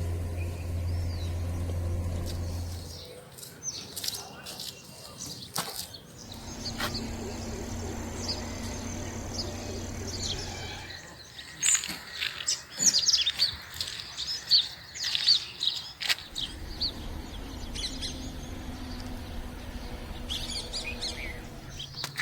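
Small birds chirping in many short, quick calls, busiest in the middle stretch, over a low steady hum that drops out and returns in patches.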